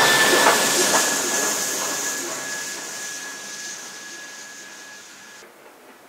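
NSW C32-class steam locomotive 3237 pulling away and receding: a steady steam hiss with a thin high tone over it and a couple of knocks in the first second, fading steadily until it cuts off sharply about five and a half seconds in.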